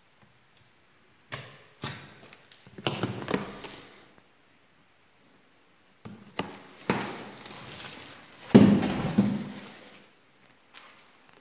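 Cardboard box being handled and shifted: a few knocks and scraping rustles in irregular bursts, the loudest a little past the middle.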